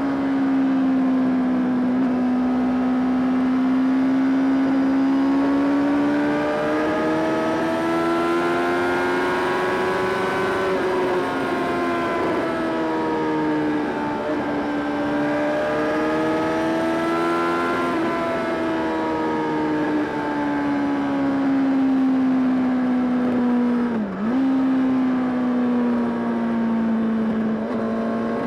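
Honda CBR600RR's four-cylinder engine pulling the bike through a fast road section. The engine note rises and falls smoothly over several seconds as the throttle is opened and eased. There is a brief sharp dip in revs about 24 seconds in.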